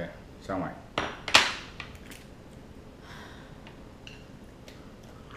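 Red king crab shell being broken open by hand: a sharp crack about a second and a half in, then quieter small clicks as the pieces are handled.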